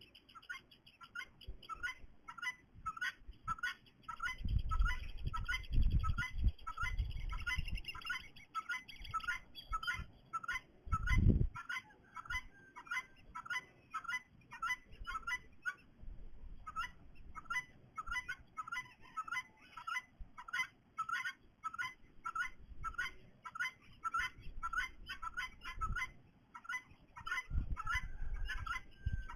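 A bird calling over and over with short, high chirps, about two a second, without a break. A few low thumps are mixed in, the loudest about eleven seconds in.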